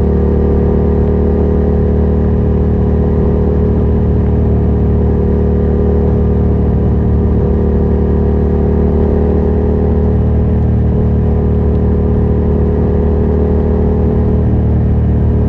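2023 Yamaha MT-07's 689 cc parallel-twin engine running loud and steady at a constant speed through a Yoshimura R77 exhaust with its dB killer removed.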